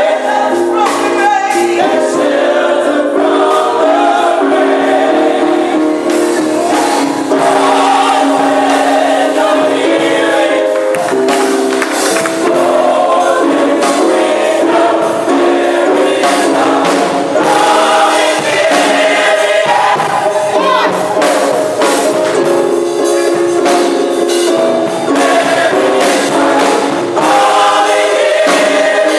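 Gospel choir singing with instrumental backing and percussion.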